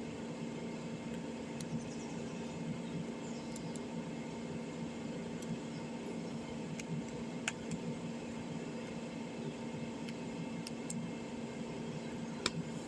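A steady low electrical hum with a few faint, short clicks scattered through it, the small clicks of screws and phone parts being handled during reassembly.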